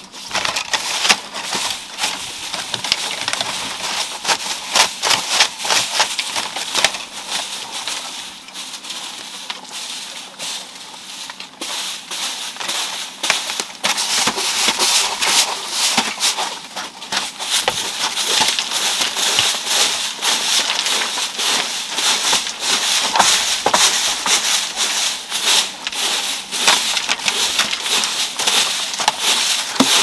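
A broom on a long bamboo pole brushing and scraping along the underside of a dry grass-thatched roof and its bamboo rafters, making a dense crackling rustle of dry straw. The sweeping goes on throughout and eases off for a few seconds near the middle.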